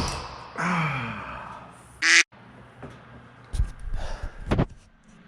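Breaking loose a seized motorcycle exhaust header bolt with an Allen wrench on an extender bar. The bolt gives with a pop, among knocks of the tool and short strained vocal noises of effort.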